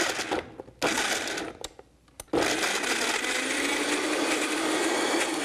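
Vitamix blender pulsed twice briefly, then run steadily from about two seconds in, its motor pitch rising slightly as it churns frozen banana chunks, dates and water into a thick soft serve.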